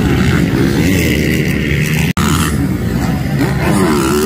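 Motocross dirt-bike engines revving, their pitch rising and falling as riders race over the jumps, with a very short break in the sound about two seconds in.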